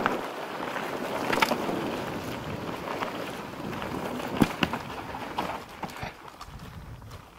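Wind rushing over the microphone during a mountain bike descent, with tyre rumble and scattered rattles and knocks from bumps in the trail; two sharper knocks come about a second and a half in and just after four seconds. The rush dies down near the end.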